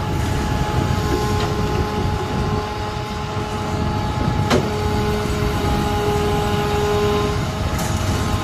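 Recycling collection truck's engine running to power its hydraulic crane, a steady rumble with a steady tone over it, as the crane's grapple lifts a bulk bag of recyclables. A single sharp clank about four and a half seconds in.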